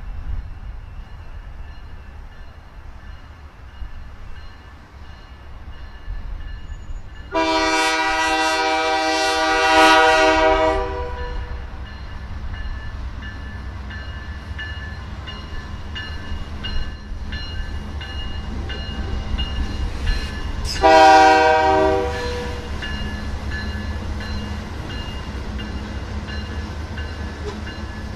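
Canadian Pacific diesel freight train passing close by with a steady low rumble of engines and rolling cars. The locomotive's multi-chime horn sounds one long blast of about four seconds, then a short blast about ten seconds later.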